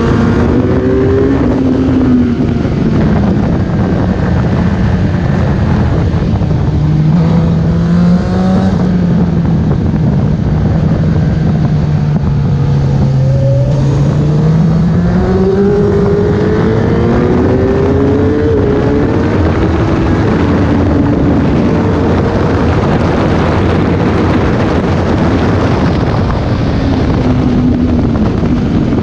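Suzuki sport motorcycle engine at speed, heard from onboard over a steady rush of wind: its note slides down slowly through the middle and climbs again later as the throttle and gears change.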